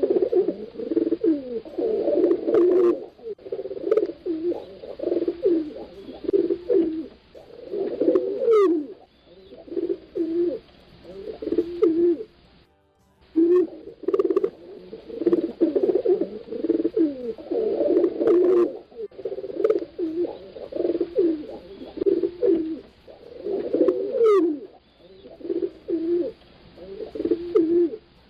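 Pigeons cooing in repeated low phrases, the calls overlapping, with a brief pause about halfway through.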